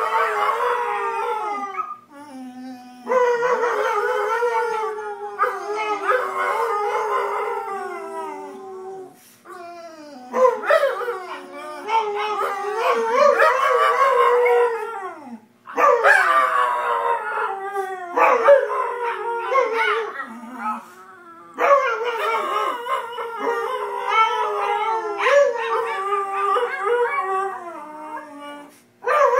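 A Dalmatian and a second dog howling together: long wavering howls that rise and fall and overlap, in about five drawn-out bouts with short breaks between.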